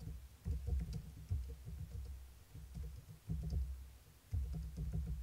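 Typing on a computer keyboard: short runs of dull key taps, about four runs with brief pauses between them.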